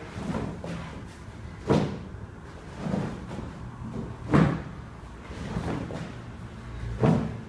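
A heavy Ultimate Sandbag being cleaned from the floor to the chest and set down again during lateral step cleans. Three louder thuds come about two and a half seconds apart, with softer knocks and shuffles in between.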